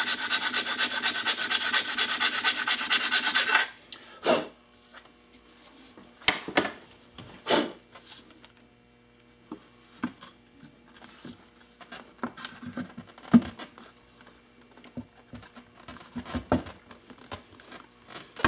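A hand file worked rapidly back and forth in a bolt hole in a motorcycle rear fender, enlarging the misaligned hole. The filing stops about three and a half seconds in, followed by scattered light clicks and knocks as the backrest bracket is set against the fender to check the fit.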